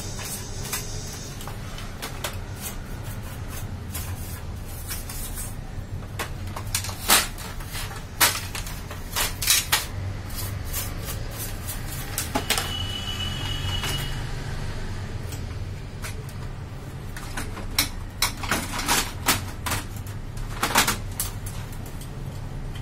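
Scattered clicks and knocks of plastic photocopier parts being handled and fitted back into the machine, a few louder knocks among them, over a steady low hum.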